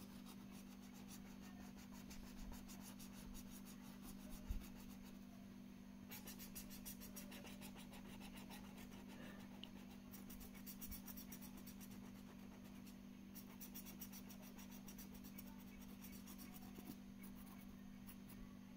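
Faint scratching of a felt-tip sketch pen colouring on paper, in quick back-and-forth strokes that come in runs, over a steady low hum. A single soft knock about four and a half seconds in is the loudest moment.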